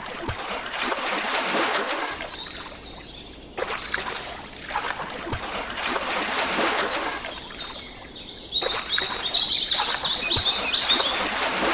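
Water splashing and trickling in a few separate stretches, with small birds chirping over it in the second half.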